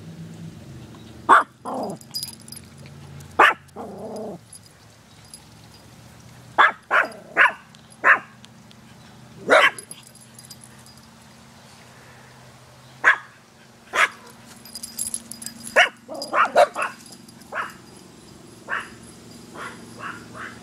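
Dog barking loudly in short, irregular single barks and quick runs of two or three, about fifteen in all, with a tight cluster a little past the middle.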